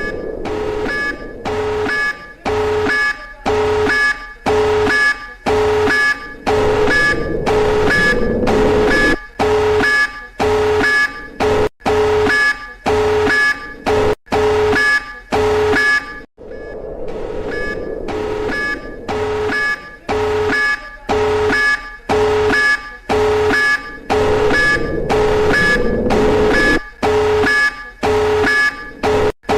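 Emergency alert system alarm tone, the alternate Peru version: a loud electronic beeping a little under twice a second, each beep a chord of a low and a higher pitch over a steady droning noise. The beeping cuts out for a moment a little past halfway, then the pattern starts again.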